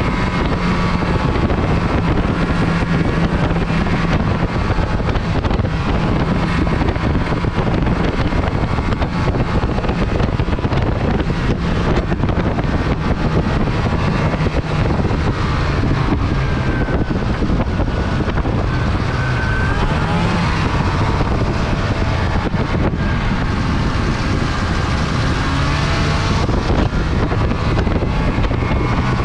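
Snowmobile engine running while riding along a trail, its pitch rising and falling with speed, with wind noise on the microphone.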